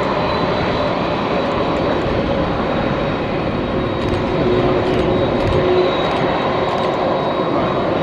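Jet airliner's engines running steadily: a dense rushing noise with a thin high whine held over it.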